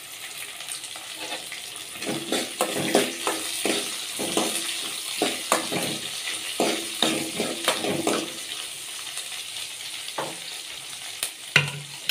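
Chopped shallots and dried red chillies sizzling in hot coconut oil in a metal kadai, with a steady hiss. From about two seconds in, a spoon stirs and scrapes against the pan in a run of repeated strokes for several seconds, and there is a single knock near the end.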